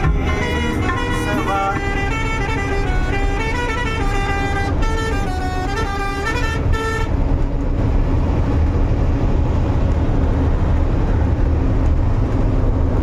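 Truck engine and road noise in the cab, a steady low rumble. For the first seven seconds or so a tune of pitched tones that step up and down plays over it, then stops, leaving only the engine and road noise.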